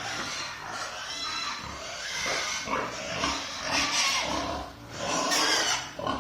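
Pigs calling in irregular, overlapping high-pitched cries, loudest about four seconds in and again near the end.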